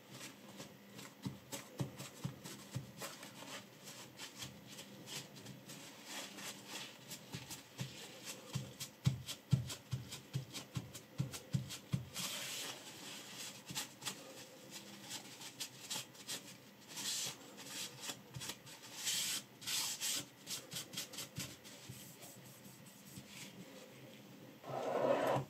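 Paper towel rubbing and rustling as it wipes a clamped kitchen knife and the metal clamp of a guided knife sharpener, among many small clicks of hands handling the metal parts, with a louder knock near the end.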